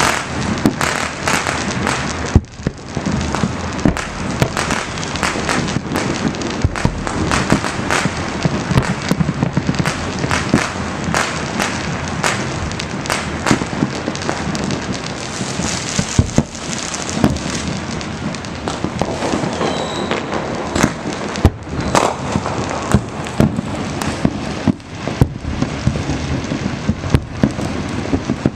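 Many fireworks and firecrackers going off at once: a dense, unbroken crackle with frequent sharp bangs scattered through it.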